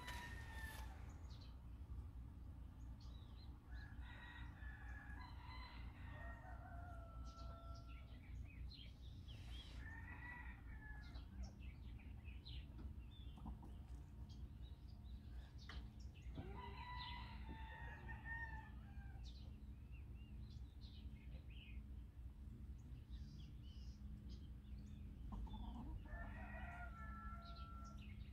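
Roosters crowing several times, each crow one to two seconds long and falling in pitch at the end, spread a few seconds apart over a faint steady low background noise.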